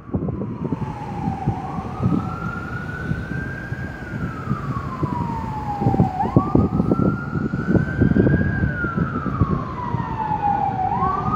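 Emergency vehicle siren on a slow wail, its pitch rising quickly and falling away slowly, about every four and a half seconds, over general traffic and street noise.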